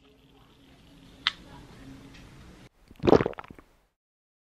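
A can of sparkling drink being handled: a faint click about a second in, then a short, louder crackling burst about three seconds in, after which the sound cuts off abruptly.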